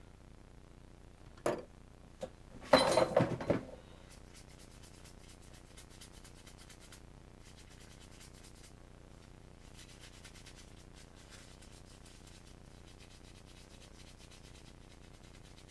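A sharp click, then about three seconds in a burst of about a second of knocking and rattling, like the chainsaw or tools being handled. After that only a faint steady hiss with light scratchy ticks.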